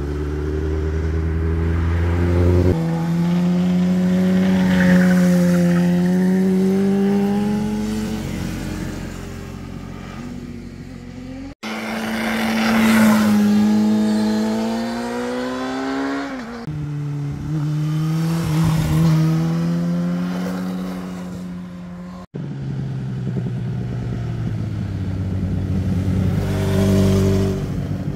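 Motorcycle engines heard in three separate passes through a hairpin bend. In each pass the engine note rises and falls with the throttle, with sudden jumps and drops in pitch as the riders shift gears. The audio cuts abruptly from one bike to the next about 11 and 22 seconds in.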